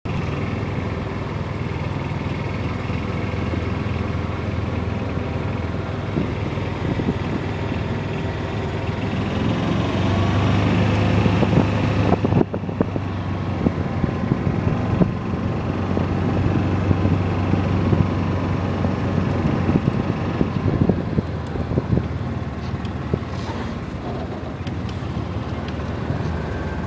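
Golf cart driving along the course path: a steady motor hum and running noise, a little louder about ten seconds in, with wind buffeting the phone's microphone.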